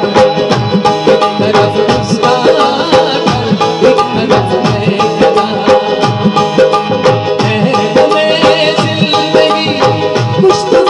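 Instrumental interlude of a live Urdu song: harmonium holding and playing the melody over a steady tabla rhythm.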